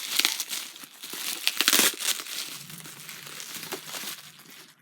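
Protective packaging wrap crinkling and rustling in the hands as a boxed toy is unwrapped, in irregular crackles that are busiest in the first two seconds and thin out toward the end.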